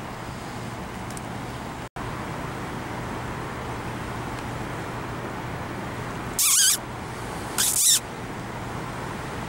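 A vehicle engine idling steadily with a low hum, heard from inside the cab. About six and a half seconds in come two short, loud, hissing high-pitched bursts about a second apart.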